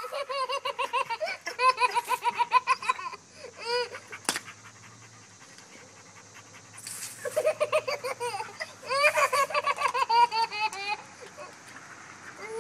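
A baby laughing in bouts of rapid, high-pitched giggles: one bout over the first three seconds, a short burst near four seconds, and another long bout from about seven to eleven seconds.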